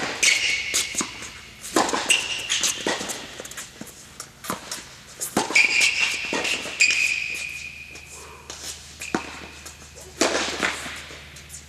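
Tennis rally on an indoor hard court: a ball struck back and forth by racquets and bouncing, each sharp hit echoing in the hall, about every one to two seconds. Between shots, sneakers squeak on the court surface.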